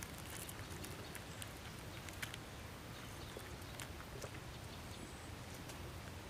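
Faint scattered clicks and crackles of fingers picking apart a grilled fish on a wicker tray, over a steady low background hiss.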